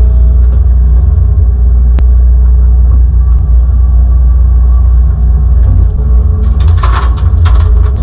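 Hitachi ZX210-6 excavator's diesel engine running under load with the hydraulics working as it digs, heard from inside the cab as a loud, steady low drone. A single sharp click comes about two seconds in, and a short burst of clattering follows near the end.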